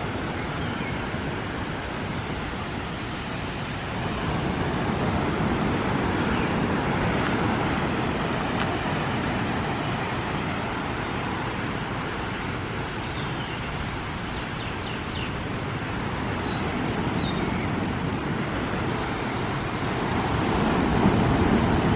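Small waves breaking and washing up a sandy beach, a steady rush that swells and ebbs every few seconds. A few faint bird chirps come about two-thirds of the way through.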